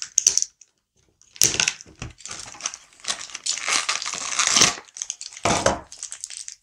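Action-figure blister packaging, a cardboard card with a plastic bubble, being slit and torn open. Irregular bursts of crinkling and tearing, the longest a little past the middle.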